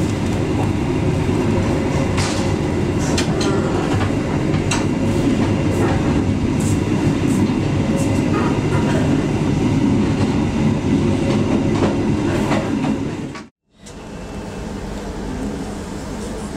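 Passenger train coach running, heard from inside: a steady low rumble with scattered clicks and knocks from the wheels and coach. About 13 seconds in it cuts off abruptly for a moment, then comes back somewhat quieter.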